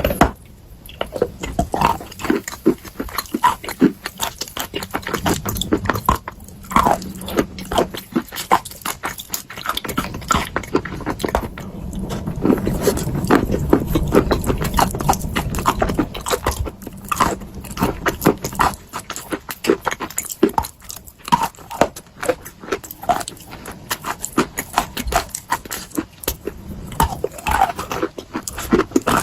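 Close-up chewing of eating chalk mixed with paste: irregular crunching and clicking, with a denser, louder stretch of chewing in the middle.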